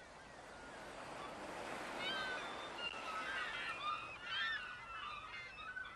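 Seagulls calling, many short high cries that crowd in from about two seconds in, over a steady rushing wash of harbour ambience that swells over the first couple of seconds.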